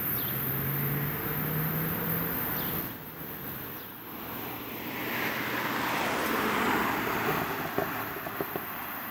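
Vehicle noise: an even rush that builds to a peak about two-thirds of the way in and then eases off, with a few sharp clicks near the end.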